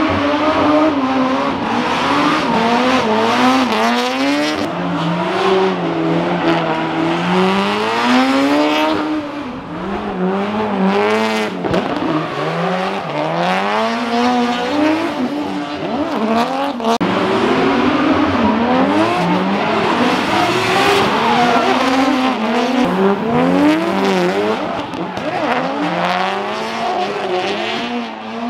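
Drift car engine revving hard and lifting off again and again, its pitch rising and falling every second or two, with tyre squeal from sliding tyres.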